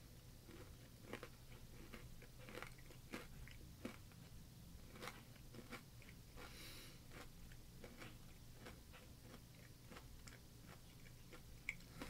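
Faint, irregular crunches of a crunchy square snack being chewed with the mouth closed, over a low steady hum.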